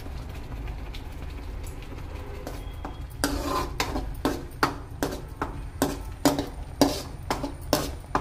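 Perforated metal ladle stirring and scraping thick masala paste in a metal kadai, the strokes knocking against the pan about twice a second from about three seconds in, over a steady low hum.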